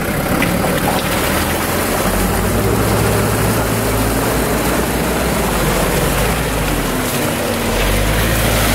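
Off-road SUV engine running hard under load as the stuck truck tries to drive out of deep mud, over a steady noisy wash of churning mud and water. The engine note rises about two seconds in, dips near the end and climbs again.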